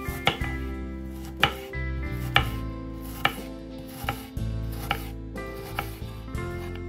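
Knife chopping on a cutting board in sharp single strokes, about one a second.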